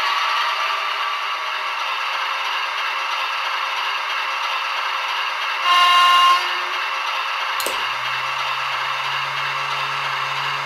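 TT-scale model train running and rattling along the track, with one short horn blast from a locomotive's sound decoder about six seconds in. A click follows, and then a steady low hum sets in.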